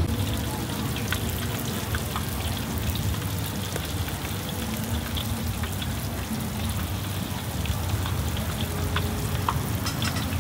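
Battered onion rings deep-frying in a steel bowl of hot oil: a steady crackling sizzle, with many small pops throughout.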